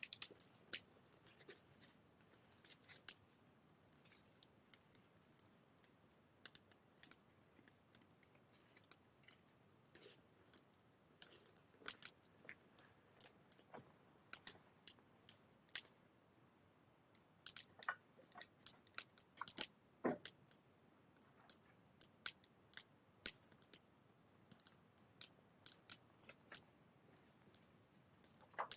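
Wood fire crackling: irregular small snaps and pops, some sharper pops standing out, over a quiet background.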